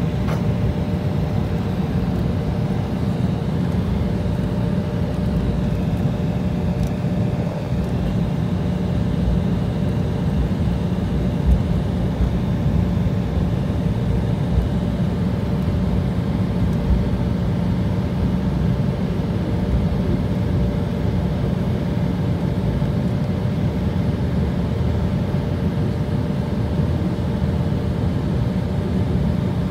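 Cabin noise of an Embraer E175LR taxiing, its twin GE CF34-8E turbofans at idle: a steady low rumble with a faint steady hum, heard from a seat over the wing.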